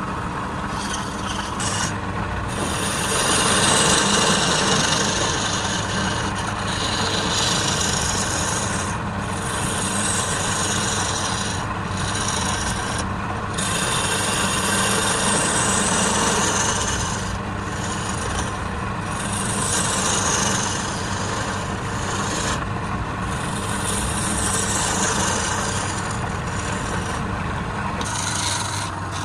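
Wood lathe running with a steady motor hum while a turning tool scrapes and cuts the spinning wood. The scraping comes in long strokes, with brief breaks where the tool leaves the wood.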